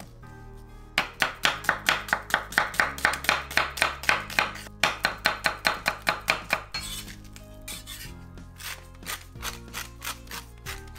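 Chef's knife slicing an onion on a wooden cutting board: rapid, even strokes about five a second, the knife knocking the board with each cut. Near the end, softer ticking from a salt grinder being twisted, over soft background music.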